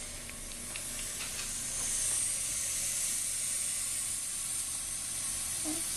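Older fill valve in a Kohler Highline toilet tank hissing steadily as water refills the tank, a little louder from about two seconds in, with a few faint clicks near the start.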